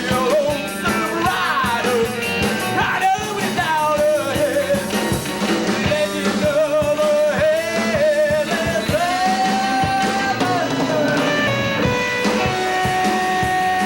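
Rock band playing live, with a lead singer over electric guitar, bass and drums. The vocal line wavers and holds one long note past the middle.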